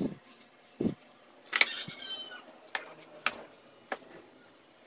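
A soft grass broom sweeping around a bamboo stool, giving a handful of sharp knocks and taps spread over a few seconds. The loudest knock comes about one and a half seconds in and is followed by a brief high squeak.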